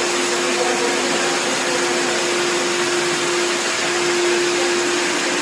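60-litre wet and dry vacuum cleaner running steadily: a constant rush of air with a steady hum.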